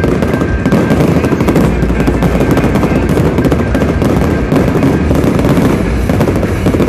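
Fireworks display fired at close range: a continuous, rapid barrage of pops and crackles as shells and comets launch and burst in quick succession.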